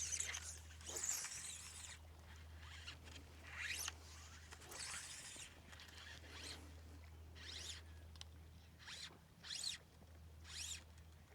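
Fly line being stripped in through the rod guides in short pulls: about eight faint, zipping hisses spaced roughly a second apart. The line is a textured bonefish line, whose ridged coating makes it zip as it is drawn in.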